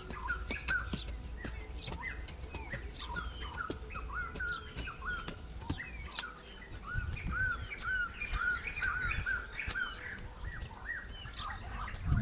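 Birds chirping with short, repeated calls, settling into a steady run of about two chirps a second in the second half. Under them come scattered light clicks of a hand hoe chopping into dry, clumpy earth.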